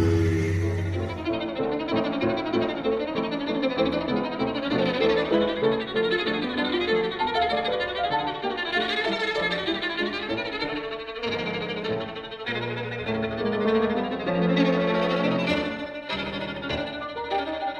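Background music led by a violin, with many quick changing notes over a lower sustained accompaniment.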